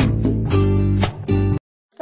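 Background music with a steady beat that stops abruptly near the end, leaving a brief silence.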